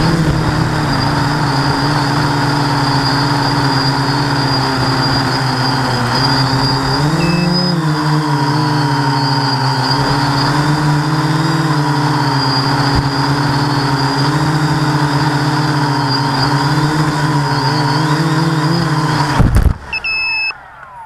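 FPV quadcopter's motors and propellers buzzing steadily, one prop unbalanced, the pitch wavering briefly about seven seconds in. Near the end the quad sets down with a thump, the motors cut out and spin down, and two short electronic beeps follow.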